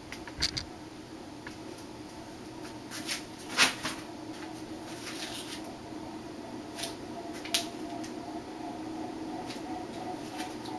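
1981 Nadair spinner ceiling fan running at full speed: a steady motor hum with irregular clicks and knocks, the loudest about three and a half seconds in. Its bearings are worn and stay loud and stiff even after oiling.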